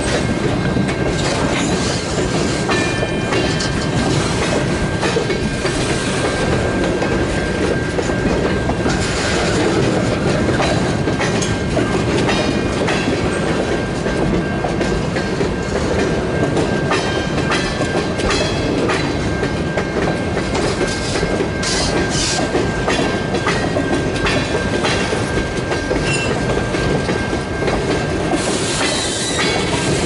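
Freight train tank cars and covered hoppers rolling past, their wheels clicking over the rail joints in a steady rhythm. A thin, steady, high-pitched squeal runs underneath.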